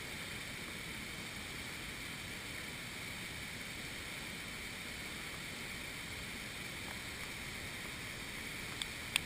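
Steady rush of a flash-flood waterfall and muddy floodwater pouring through a narrow slot canyon, with two short clicks near the end.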